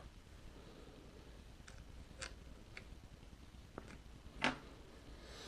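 A few sparse, light clicks and taps of small metal hardware being handled as flange nuts are put onto carriage bolts, with one louder click a little after four seconds in.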